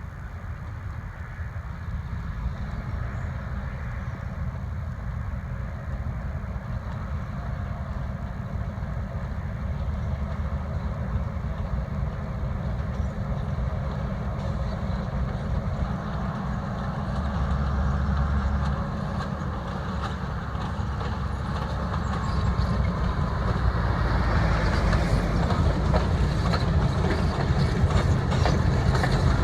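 A train approaching, its low rumble growing steadily louder, with rapid clatter from the wheels on the rails coming in over the last few seconds.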